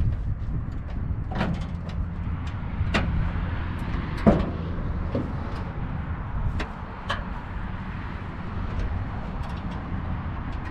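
Steel hood of a 1949 Ford being unlatched, lifted and propped open: a series of sharp metal clicks and clunks, the loudest about four seconds in, over a steady low rumble.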